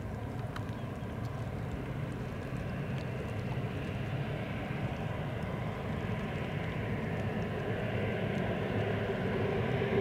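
Embraer ERJ-195's twin General Electric CF34-10E turbofan engines running as a steady jet drone that slowly grows louder, with a humming tone strengthening near the end.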